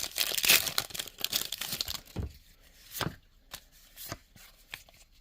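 Foil booster-pack wrapper of a Pokémon trading card pack being crinkled and torn open, a dense crackle for about two seconds. Then come a few scattered soft knocks and rustles.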